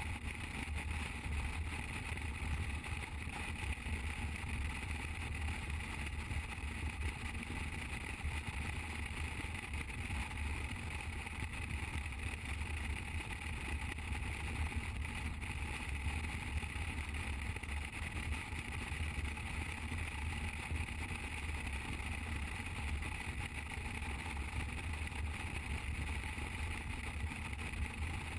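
Motorcycle cruising at highway speed: a steady engine drone mixed with wind and road rush, unchanging throughout.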